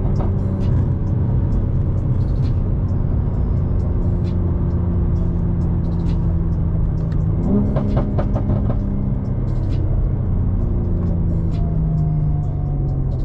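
BMW G80 M3's twin-turbo inline-six heard from inside the cabin, pulling steadily in gear as the car slows. About seven and a half seconds in, a downshift lifts the revs with a quick step up in pitch, followed by a few sharp crackles.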